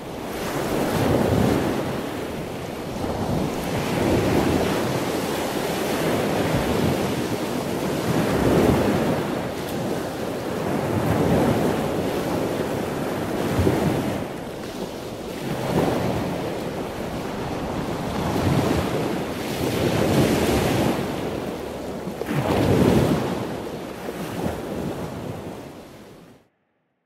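Ocean surf breaking on the shore, swelling and ebbing every few seconds, with wind; it fades out near the end.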